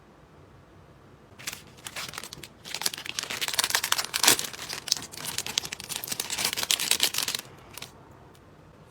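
Packaging being crinkled and rustled by hand as the phone case is unwrapped, a dense crackling that starts about a second and a half in and stops suddenly about seven and a half seconds in.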